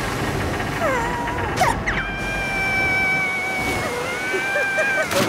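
Cartoon score of quick sliding notes and long held tones over a steady rush of pouring, splashing water, with a sharp hit about a second and a half in.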